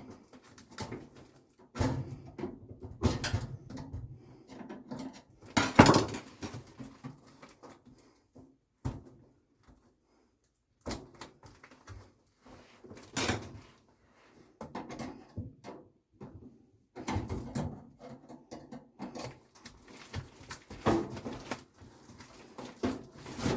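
Irregular knocks, clunks and scrapes of hands working around the back of a tumble dryer in a cramped space, with the loudest knock about six seconds in and a few pauses between bouts of handling.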